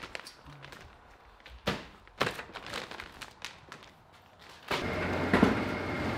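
Scattered knocks and thunks of a scoop, substrate bags and a plastic container being handled on a steel table. About three-quarters of the way through, a steady machine hum with a thin high whine sets in.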